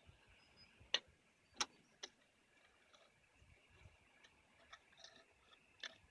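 Near silence with a handful of faint, short, sharp clicks or taps: the two loudest come about a second and a second and a half in, with another near the end and a few smaller ticks between.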